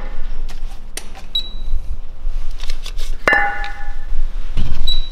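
Cast-iron brake discs being handled: scattered knocks and clicks, and about three seconds in one sharp metallic clink that rings briefly.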